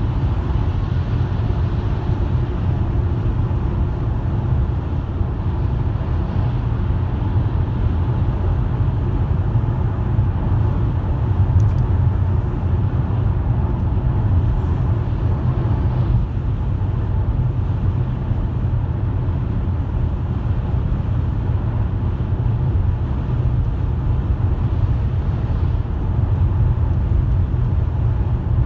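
A car driving at a steady speed: a constant low drone of engine and road noise.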